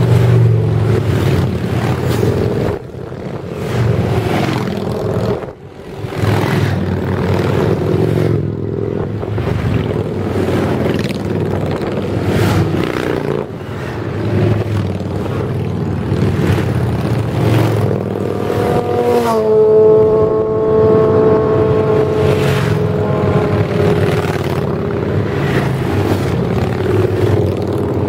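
A procession of touring and cruiser motorcycles riding past one after another, engines swelling as each bike comes close and fading as it goes by. About two-thirds of the way through, a held pitched tone sounds over the engines for several seconds, dropping in pitch at first and then sliding slowly lower.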